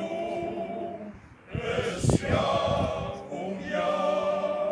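Men's choir singing, holding long notes, with a brief break between phrases about a second and a half in. A short low thump about two seconds in.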